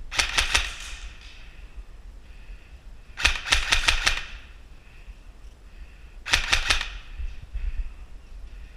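Airsoft gun firing three short bursts of rapid shots, about three seconds apart.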